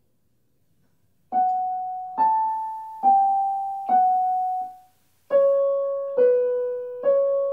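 Electronic keyboard playing a slow, gentle tune of single sustained notes, about one a second. It starts a second or so in, with a short break about two-thirds of the way through before the notes resume lower.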